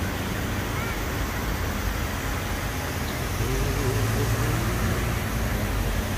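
Steady city traffic noise with a low engine hum from passing vehicles, growing louder about halfway through.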